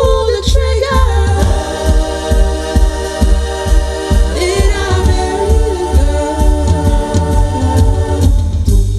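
Music played through a car audio system: layered, choir-like vocal harmonies held over a deep, steady bass beat, the voices gliding to a new chord about halfway through.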